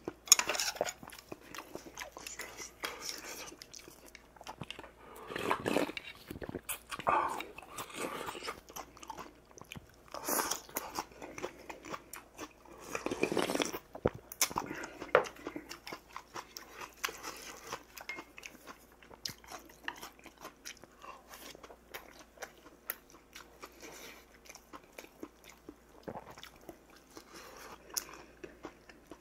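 Close-up eating sounds: chewing and crunching of rice and side dishes, with many small clicks. A louder sip from a small metal bowl of soup comes about halfway through.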